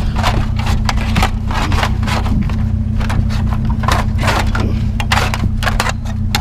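Pieces of scrap metal scraping and knocking in irregular strokes as they are pushed into a pickup's bed, over the steady low hum of an idling engine.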